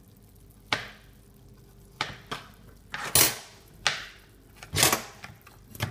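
Irregular sharp knocks and clatters in a sink holding live crawfish, about eight of them, the loudest near the middle and about five seconds in.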